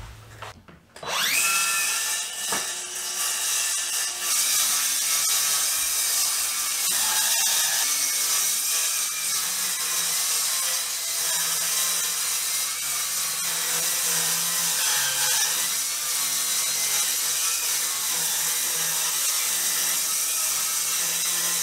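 Craftsman cordless circular saw spinning up with a rising whine about a second in, then running steadily as it cuts through the mobile home's subfloor, with its blade depth set to 3/4 inch.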